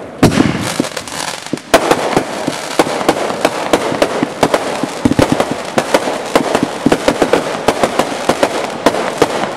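Aerial consumer fireworks going off: a fast, uneven run of sharp bangs and crackles, several a second, with the loudest reports near the start and about two seconds in.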